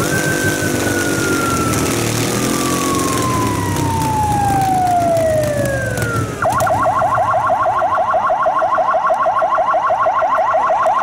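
Electronic siren: a long wail falling steadily in pitch for about six seconds, then switching abruptly to a fast yelp of rapid rising whoops. Under the first part, a V-twin motorcycle engine runs hard in a burnout, its rear tyre spinning.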